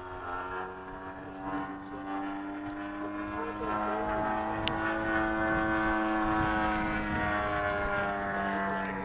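Large radio-controlled model airplane's engine and propeller running steadily in flight. It grows louder and its pitch rises slightly, then falls, as the plane passes. One brief sharp click about halfway through.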